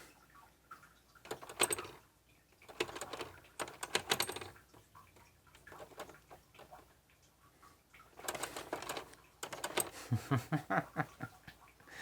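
Plastic keys of a toy talking typewriter clicking and tapping in four separate bursts, with quiet gaps between them.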